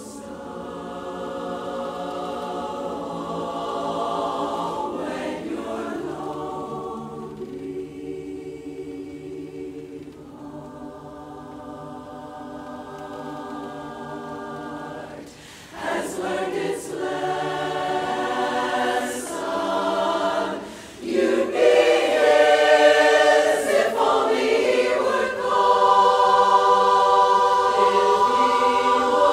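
Women's barbershop chorus singing a cappella in close harmony. A softer passage, then the chords swell louder about halfway through, with a couple of short breaks, to full sustained chords near the end.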